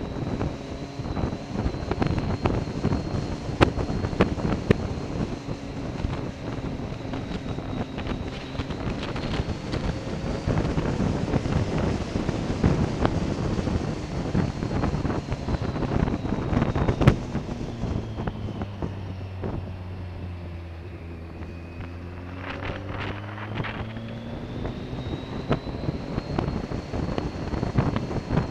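Motorcycle riding along with its engine running and wind rushing over the microphone. About two-thirds of the way through, the engine note drops as the bike slows, then climbs again as it speeds back up.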